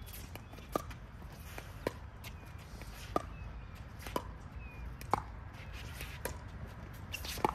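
Pickleball paddles hitting the plastic ball in a rally: sharp pocks about once a second, about seven in all, with fainter taps between them.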